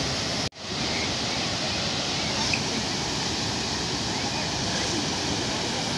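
Dhuandhar Falls on the Narmada River: a steady rush of falling and churning water. The sound cuts out for a moment about half a second in, then fades back.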